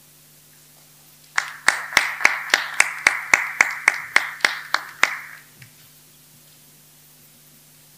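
Small audience applauding: a few people clapping, with one set of loud, even claps about three or four a second standing out. It starts about a second and a half in and dies away after about four seconds, leaving a faint steady hum.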